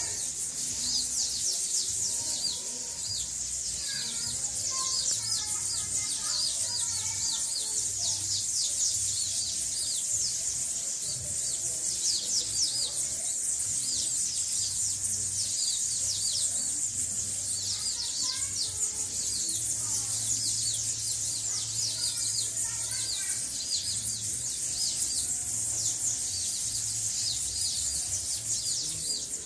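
A flock of small songbirds, bananaquits among them, chirping and twittering without pause, mostly high, quick notes with a few lower calls mixed in.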